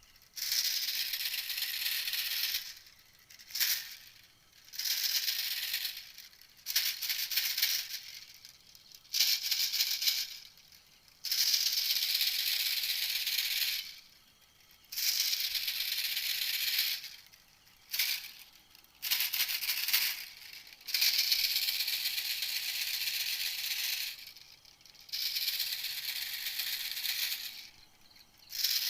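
Recorded call of a small songbird played as a hunter's decoy call: rapid high-pitched rattling trills in repeated bursts of one to three seconds, broken by short pauses.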